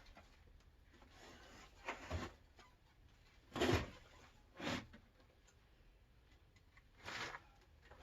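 A handful of short scrapes and knocks, the loudest about halfway through, as a heavy worm bin is slid and set into place on a shelf.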